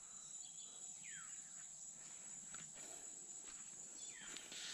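Faint outdoor morning ambience: a steady high-pitched insect drone, with two faint falling chirps, one about a second in and one near the end.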